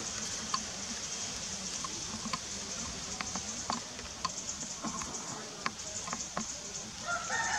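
Outdoor ambience: scattered light clicks and crackles over a steady high hiss. A short pitched animal call starts near the end.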